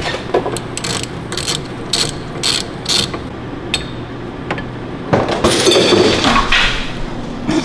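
Ratchet wrench clicking in short strokes, turning the bolt of a tie rod end puller to press the tie rod end out of the steering knuckle. A louder rasping spell lasts about two seconds, some five seconds in.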